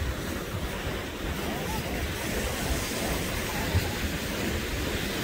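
Ocean surf washing onto the beach, a steady rushing noise, with wind buffeting the microphone in low rumbling gusts.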